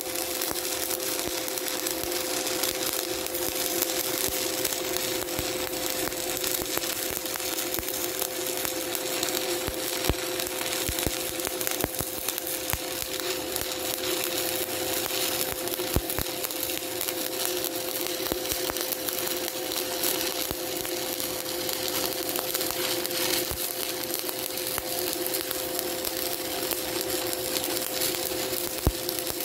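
Shielded metal arc (stick) welding arc, run on DC electrode-positive, crackling and sizzling steadily with many small pops as a vertical-up bead is laid on a steel test plate. A steady hum sits underneath.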